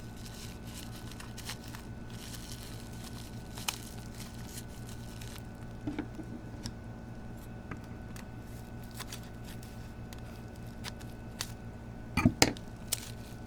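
Packaging being unwrapped by hand: faint rustling, crinkling and tearing with scattered small clicks over a steady low hum, and a few sharper clicks near the end.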